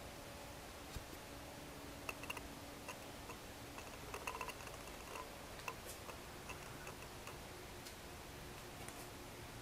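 Quiet room tone with a faint steady hiss and hum, broken by scattered light clicks and ticks, a small cluster of them about two and four seconds in.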